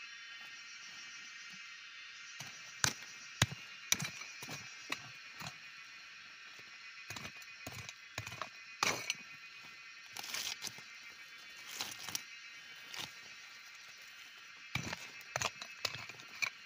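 Plant stalks and leaves rustling and snapping in short, sharp clicks as they are handled and broken, irregular and clustered in several groups. Under them runs a steady high-pitched drone.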